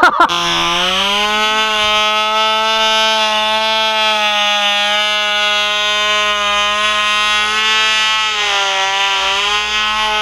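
Cox Black Widow .049 two-stroke glow engine on a model plane, running at high revs with a high, steady buzz. Its pitch climbs in the first half second, then holds, and wavers briefly about eight to nine seconds in.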